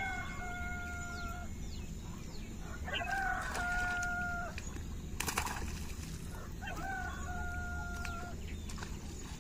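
A conch shell blown three times, each blast scooping up briefly and then holding one steady tone for over a second. A brief splash of water comes about five seconds in.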